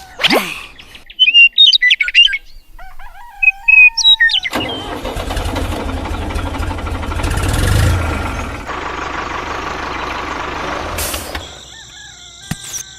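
Loud bird chirps in the first four seconds, then a small engine starts and runs steadily for about seven seconds, swelling briefly near the middle before cutting off.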